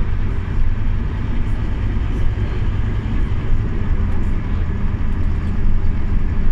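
Scania OmniLink CK270UB city bus heard from inside the passenger cabin: a steady, loud, low engine and drivetrain drone with a rumbling noise over it.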